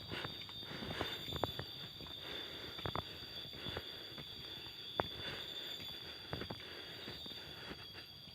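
Footsteps on stone stairs: irregular sharp knocks and scuffs, a few seconds apart, over a steady high-pitched insect drone.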